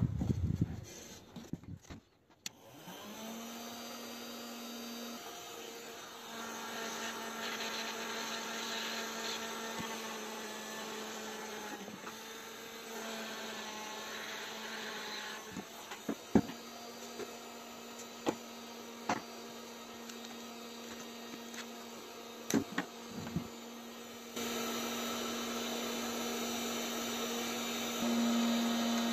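Steady electric hum of a plastic-welding tool running while cracks in an ABS motorcycle side cover are welded, with a few sharp clicks near the middle.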